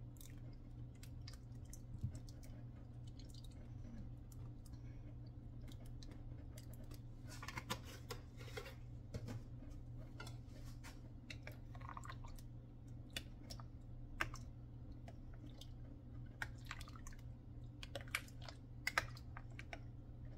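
Thick chocolate rice porridge cooking in a glass pot over a gas flame: faint, irregular pops and clicks over a steady low hum, thickest about a third of the way in and again near the end.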